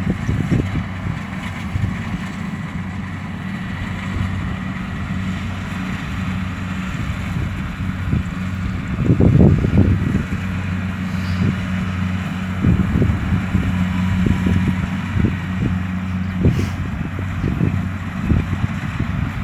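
Kubota DC-70 combine harvester's diesel engine running steadily under load with a constant drone, overlaid by irregular low rumbling surges, the strongest about halfway through.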